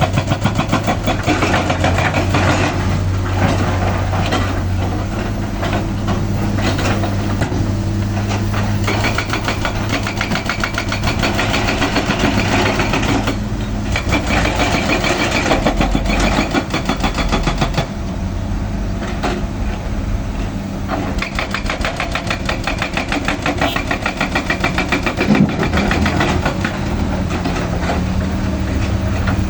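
Hydraulic excavator's diesel engine running as it works, its note shifting every few seconds as the load changes. There is one brief knock about 25 seconds in.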